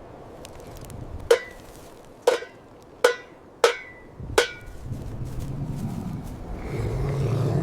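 Five sharp knocks, like hammer blows, about a second apart, each with a short ringing tone. After them a low rumbling noise builds and is loudest near the end.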